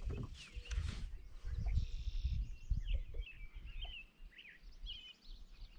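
Songbirds chirping, a quick run of short repeated notes that carries through the second half. In the first couple of seconds there is a low rumble with a few sharp knocks.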